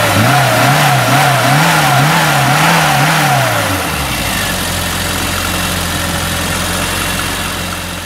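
Car engine revved in quick repeated blips, its pitch rising and falling over and over, then settling to a steady idle about four seconds in.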